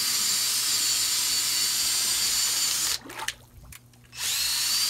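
Cordless drill with a paddle mixing bit stirring a bucket of liquid clay slurry, its motor whining steadily. It stops suddenly about three seconds in and starts again about a second later, the whine rising back up to speed.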